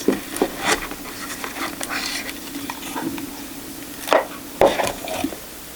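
Tarot cards and their cardboard box being handled: light taps, clicks and rustles, with two louder knocks a little after four seconds in.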